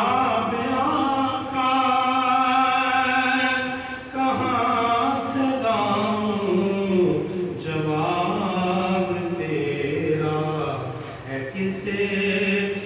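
A man reciting a naat unaccompanied, singing long held phrases that glide slowly in pitch, with short breaks for breath about four, eight and eleven seconds in.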